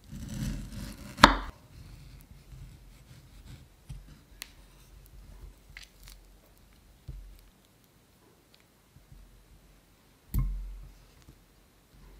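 Kitchen knife cutting through a peeled tomato and knocking against a wooden cutting board, with one sharp knock about a second in. Faint small ticks follow as hands pull the tomato apart and pick out the seeds, and another thump comes near the end.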